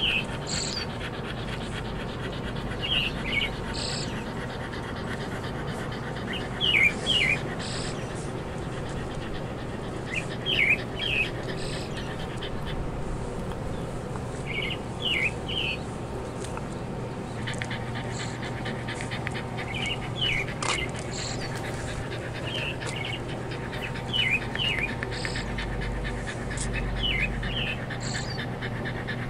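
A bird repeating a short call of two or three quick chirps every three to four seconds, over a steady low hum. A dog pants close to the microphone.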